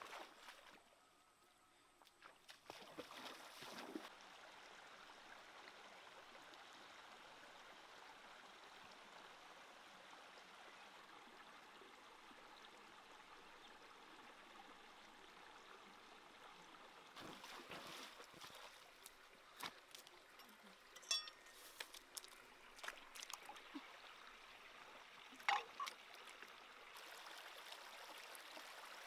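Shallow stream water running over rocks, faint and steady, with scattered short clicks in the second half.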